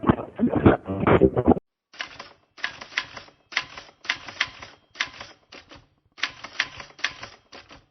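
A voice for the first second and a half, then rapid typing clicks in about nine short bursts with brief pauses between them.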